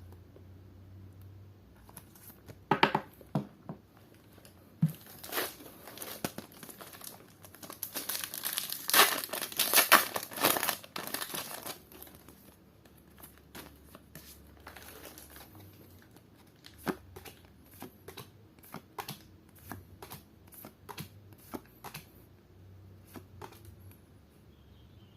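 Foil Pokémon booster pack wrapper being torn open and crinkled, loudest in the first half. It is followed by a run of short, separate clicks, about one or two a second, as the cards are flicked through one by one.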